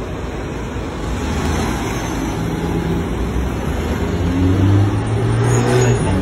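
Street traffic: a motor vehicle's engine running close by over steady road noise, getting louder in the second half.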